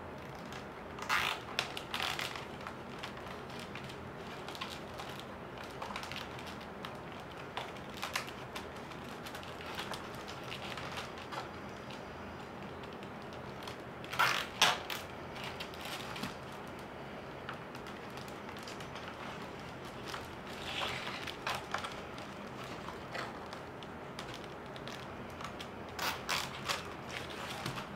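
Reed basket rims pressed into notches and plastic cable ties pulled tight around them: a few short bursts of creaking and ratcheting clicks, the loudest about fourteen seconds in.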